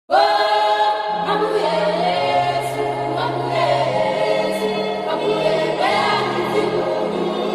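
Intro music: a choir singing long held notes over low sustained notes.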